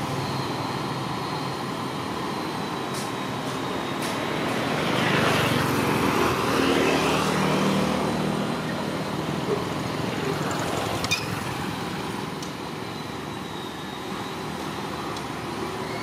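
Street traffic: small motorbikes and cars passing, swelling as one passes close about five seconds in. Two short clicks near the middle.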